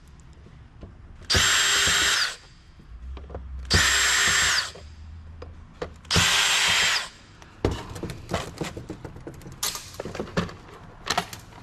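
Power drill-driver with a small bit running in three short bursts of about a second each, backing screws out of a CD-ROM drive. After that come many light clicks and taps of screws and metal parts being handled.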